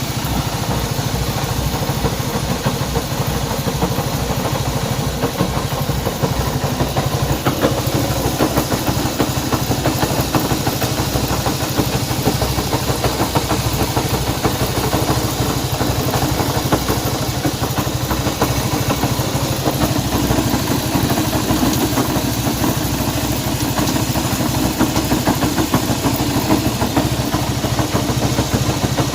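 Honda CB190R's single-cylinder engine idling steadily. It is the engine being checked for a strange noise.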